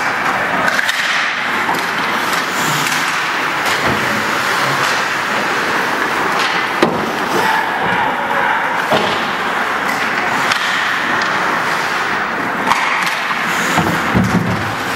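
Ice hockey play: skates scraping across the ice over a steady rink din, with several sharp knocks of sticks, puck and boards.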